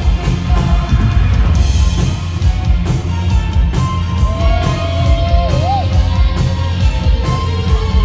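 Live psychedelic rock band playing through a hall PA: electric guitar, keyboards, bass and drums. Held lead notes ride over the band, one bending up and back down a little over halfway through.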